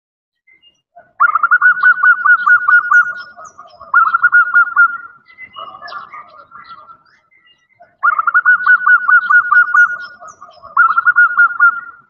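Female zebra dove (perkutut) calling: fast, rapidly pulsed rolling coo-trills in several bouts of one to two seconds, with softer notes between. This is the call a female uses to draw males, played as a lure.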